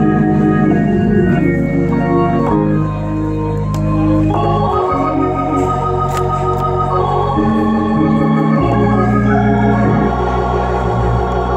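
Organ playing a slow gospel accompaniment: held chords that waver, over sustained low bass notes, changing chord every second or two, with no voice.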